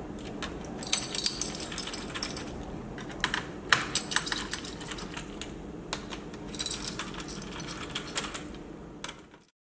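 Bursts of light clicking and clattering from small hard objects, irregular and in three clusters, over a steady low hum; the sound cuts off abruptly near the end.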